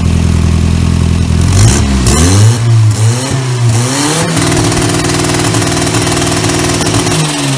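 Turbocharged VW AP four-cylinder engine in a Voyage idling, then blipped several times in quick succession with short bursts of hiss. The revs are then held steady at a raised speed for about three seconds and drop back toward idle near the end.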